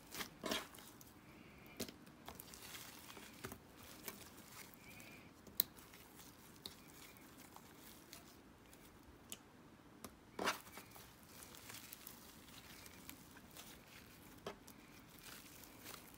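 Thick slime being kneaded and stretched by hand, giving soft, irregular crackles and pops with a few sharper clicks; the loudest come about half a second in and again about ten seconds in.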